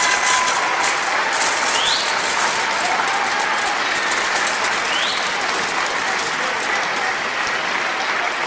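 A large audience applauding: dense, even clapping at a steady level.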